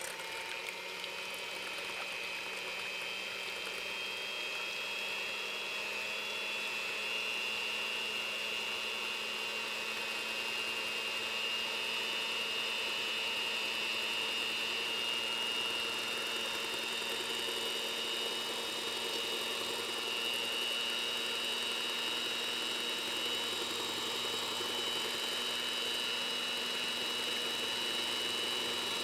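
Electric hand mixer running steadily, its twin wire beaters whipping egg whites to foam in a stainless steel bowl. Its whine edges up slightly in pitch over the first several seconds, then holds steady.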